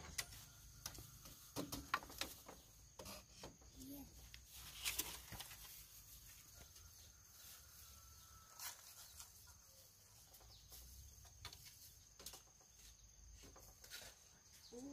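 Faint rural ambience: a steady high-pitched insect drone, with scattered light clicks and knocks.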